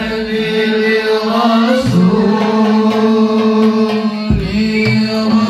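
A young male voice singing sholawat through a PA system, holding long ornamented notes, with deep hand-drum thumps from the hadroh frame drums about two and four seconds in.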